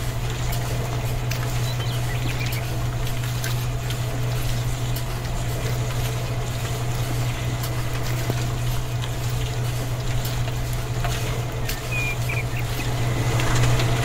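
A small motor running steadily with a low, even hum, with scattered light clicks over it.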